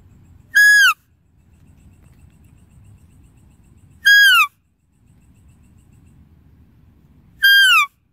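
A high-pitched, whistle-like deer call sounded three times about three and a half seconds apart, each call short and held level before falling in pitch at the end. A faint low hum runs between the calls.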